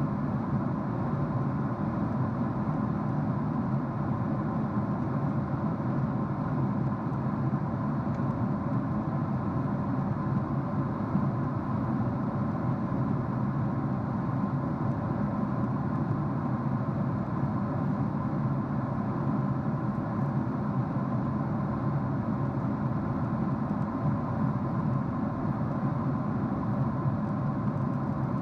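Steady drone inside a jet airliner's cabin at cruise: engine and airflow noise through the window seat, even and unbroken, with a few faint steady hums in it.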